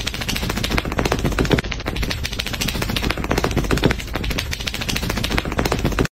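A dachshund shaking its head fast and repeatedly, its ears flapping in a rapid, continuous rattle that stops suddenly near the end.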